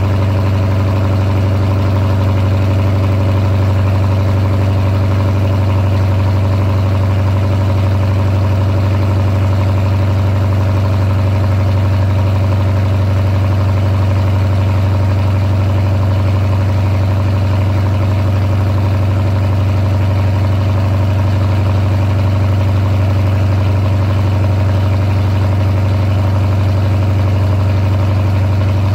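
Chrysler 300 SRT's Hemi V8 idling steadily while still cold after a cold start, heard close at the exhaust tailpipe as a deep, even rumble with no revving.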